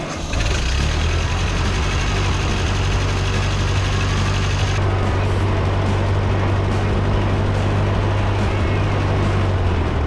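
1947 Ford 2N tractor's four-cylinder flathead engine coming up to speed just after the start and then running steadily, freshly restarted after a clutch pedal adjustment.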